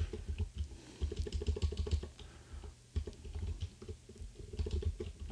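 Typing on a computer keyboard: runs of quick key clicks with a short pause partway through.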